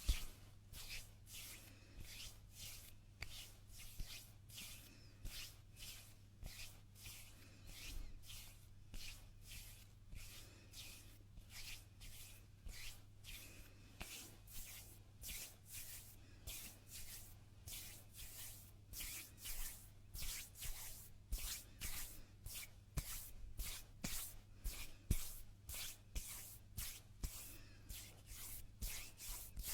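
Hands rubbing against each other close to the microphone in repeated quick strokes, about three a second and coming faster near the end, over a steady low electrical hum.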